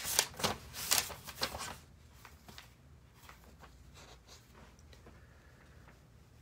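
Book pages being turned and handled, with a few sharp papery rustles in the first two seconds, then only faint handling sounds.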